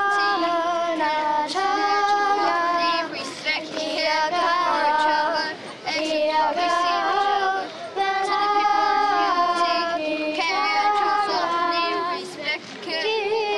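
A group of children singing a waiata (a Māori song) together, the melody moving in held notes that step up and down, with short breaks between phrases.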